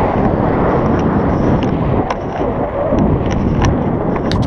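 Airflow buffeting the microphone of a selfie-stick action camera in tandem paraglider flight: a loud, steady rumbling wind noise, with scattered light clicks from the camera and its mount, more of them near the end as a hand reaches for it.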